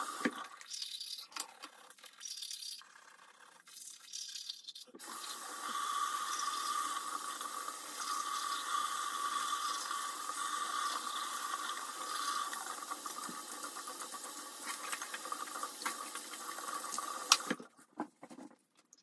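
Tap water running into a bathroom sink. It runs unevenly in the first few seconds, then steadily, and shuts off near the end.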